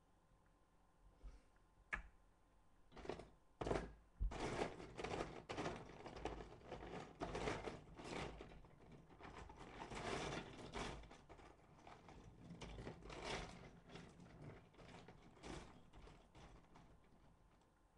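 Loose plastic Lego bricks clicking and clattering as someone rummages through a pile of pieces. A few separate clicks come first, then a long stretch of dense, irregular rattling that thins out near the end.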